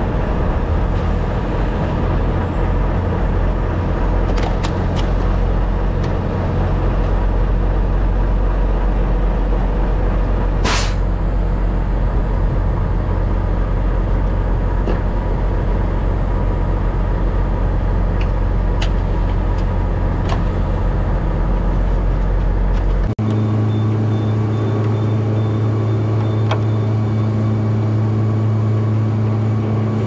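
Truck being driven on the road: steady engine and road noise, with a single sharp click about eleven seconds in. About two-thirds of the way through the sound changes abruptly to a steadier, more even engine hum.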